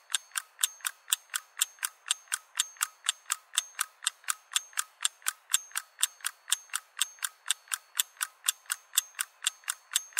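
Clock-style ticking, evenly spaced at about four to five ticks a second with an unvarying beat, like a ticking-clock sound effect.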